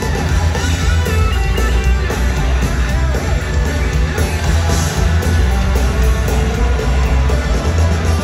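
A live rock band playing loudly: electric guitars over drums, with heavy bass, recorded on a phone from within the crowd.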